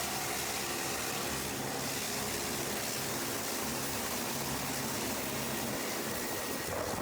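Steady engine drone with rushing air noise inside a moving vehicle's cabin: an even hiss over a low hum.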